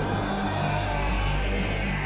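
Dramatic film score music with sustained low notes.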